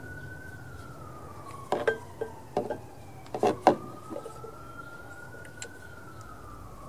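Faint emergency-vehicle siren wailing, its pitch rising and falling in a slow cycle. Over it come a few sharp clicks and knocks of a spark plug and metal socket tool being handled, the loudest about three and a half seconds in.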